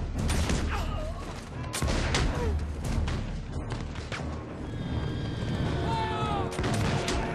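Musket fire in scattered shots, several close together at the start and about two seconds in and another near the end, with men yelling between them. Orchestral film music comes in during the second half.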